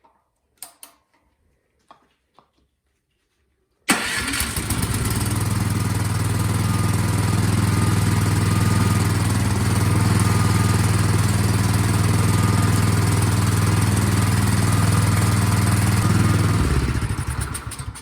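Craftsman snowblower's small four-stroke engine starting on half choke after its carburetor was cleaned. It catches suddenly about four seconds in, runs steadily and loudly for about twelve seconds, then stops and winds down near the end.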